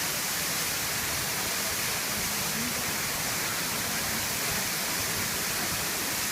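Minoo Falls, a waterfall, giving a steady, unbroken rush of falling water.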